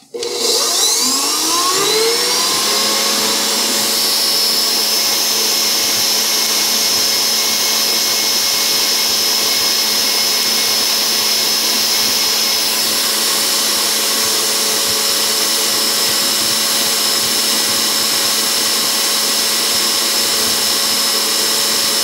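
KitchenAid Pro 600 bowl-lift stand mixer's motor running, whining up to speed over the first two seconds and then running steadily with a constant hum and whine.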